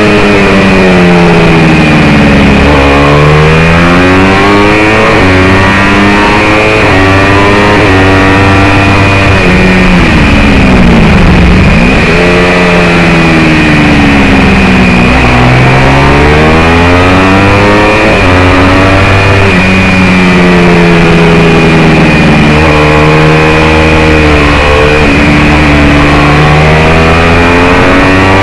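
Onboard sound of a small single-cylinder racing motorcycle engine at full load, revving up through the gears and falling back on braking and downshifts, over and over around the lap.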